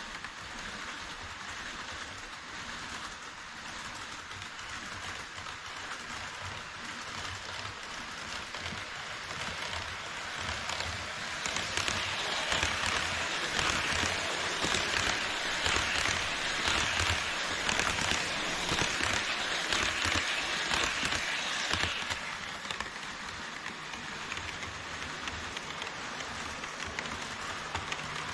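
HO-scale model trains running on plastic-based sectional track: a steady rattle and clatter of small metal wheels over rails and joints. It grows louder for about ten seconds in the middle as an E5 shinkansen model passes close by, then drops back.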